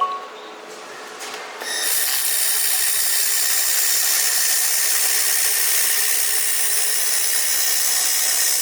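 Handheld air-cooled fiber laser welder running on carbon steel: a loud steady hiss, with a few faint steady high tones in it, starts about two seconds in and keeps going.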